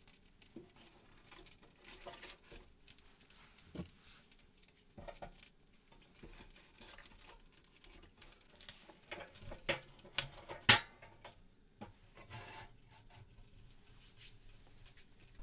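Lighting and feeding a small metal wood-burning stove: scattered light clicks, rustles and knocks of kindling and wood against the stove, with a few louder knocks a little past the middle.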